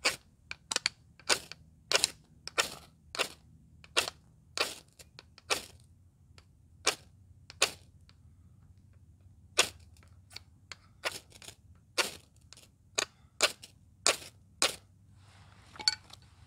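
Dry wood being broken up for firewood kindling: sharp, sudden cracks, roughly two a second, in runs with short pauses between them.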